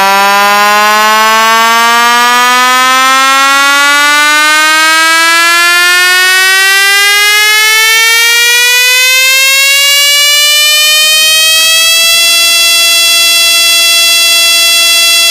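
Synthesized buzzy tone sweeping steadily upward in pitch for about twelve seconds, then holding one steady note: a rising sweep effect in an electronic car-audio test track.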